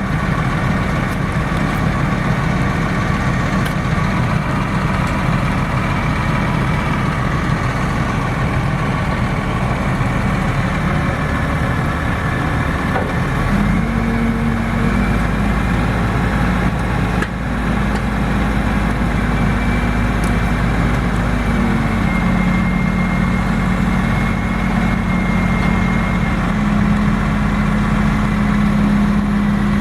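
A heavy truck engine on tree-removal equipment runs steadily. Its note changes about halfway through, as if it has been put under load.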